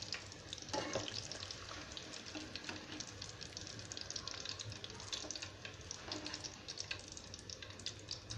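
Whole quail deep-frying in hot oil, a faint steady sizzle full of small crackles and pops, with a brief louder noise about a second in. The bubbling has settled down, the sign that the quail are nearly done.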